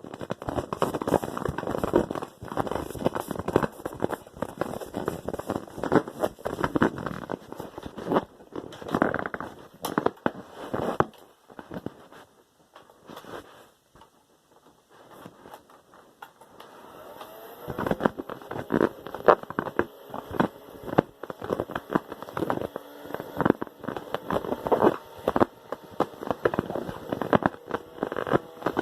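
Long runs of sputtering, crackling fart sounds. They die away to near quiet about twelve seconds in and start again a few seconds later.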